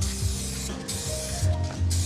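Aerosol 2K clear coat spray can hissing in passes over a headlight lens, cutting out briefly twice, with background music.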